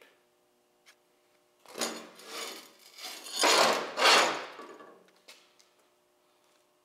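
Rubbing, scraping noise in two stretches of a second or so each, the second louder.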